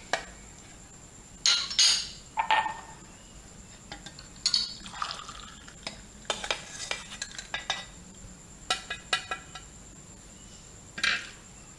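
A pot and kitchen utensils being handled, clinking and clattering in a scattering of short knocks and clinks, a few of them ringing briefly.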